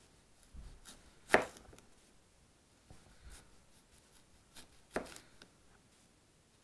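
Victorinox Hunter Pro pocketknife's 3 mm blade cutting into a hard apple, with two sharp cracks, one about a second in and one near five seconds, amid smaller scraping and rustling. The thick blade wedges the hard apple apart rather than slicing it cleanly.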